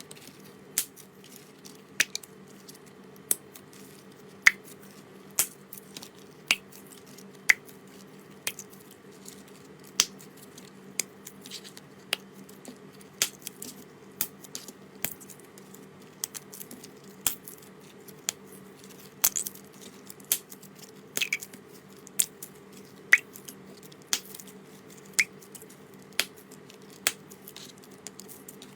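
Slime being handled, giving sharp, short clicking pops about once a second, some louder than others, over a faint steady low hum.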